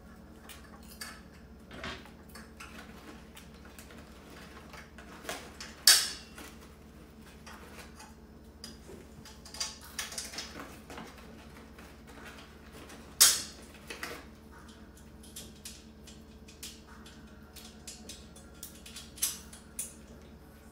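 Metal tube frame of a kitchen storage cart being handled and fitted together: scattered clinks and clicks of metal parts, with two sharp louder knocks about six and thirteen seconds in.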